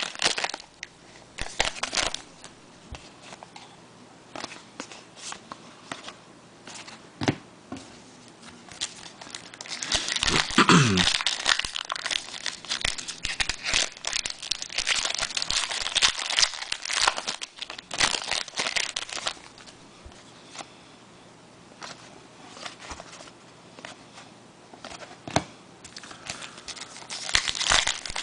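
Trading-card pack wrappers being torn open and crinkled, with cards being handled and shuffled. The crinkling is heaviest about a third of the way in and again near the end, with scattered sharp clicks in between.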